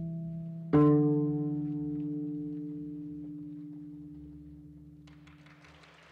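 A koto plucked once about a second in, the note ringing and slowly fading away over the tail of an earlier note. A faint hiss comes up near the end.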